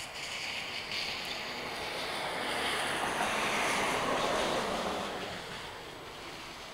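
Radio-controlled model airplane passing overhead: a rushing whoosh of its propeller and airframe that swells to a peak about halfway through and then fades away.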